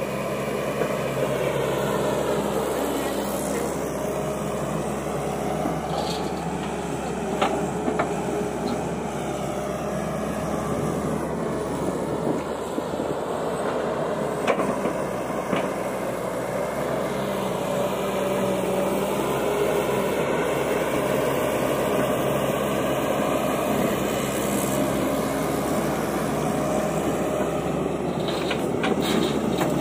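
Tata Hitachi EX200LC excavator's diesel engine running steadily under load while it digs and loads soil, with a few short knocks through it.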